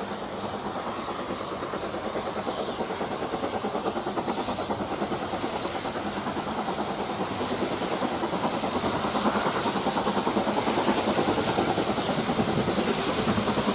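Steam locomotive approaching under power, its exhaust beating in a fast even rhythm that grows steadily louder as it nears.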